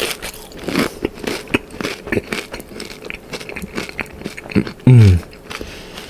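Close-up chewing and crunching of loaded Doritos nachos, with irregular crisp crunches. About five seconds in, a short, loud low hum from the eater falls in pitch.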